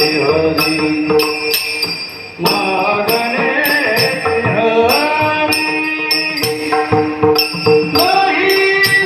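Varkari kirtan music: devotional singing over held drone-like tones, with small brass hand cymbals (taal) struck about twice a second in a steady rhythm. The music dips briefly about two seconds in.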